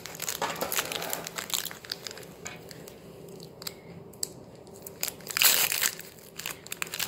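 Foil Pokémon booster pack wrapper crinkling and tearing as it is pulled open by hand, in irregular crackles with a louder burst of crinkling about five seconds in.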